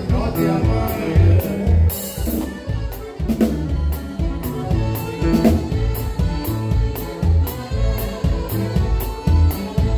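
Live norteño band music: accordion over a drum kit keeping a steady beat.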